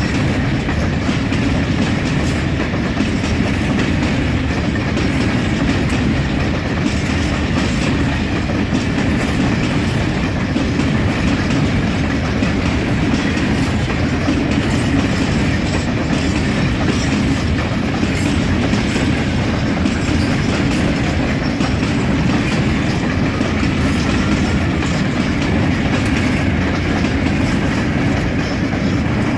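A freight train of four-axle covered hopper wagons rolling steadily past at close range: a continuous, loud rumble of wheels and wagon bodies on the rails.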